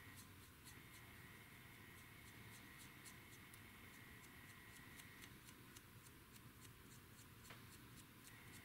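Near silence: room tone with faint light ticks a few times a second and a faint steady high whine that drops out past the middle and comes back near the end.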